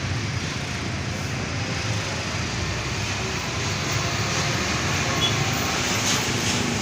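Heavy truck traffic on a road: steady engine rumble and tyre noise, growing a little louder about four seconds in as a vehicle draws closer.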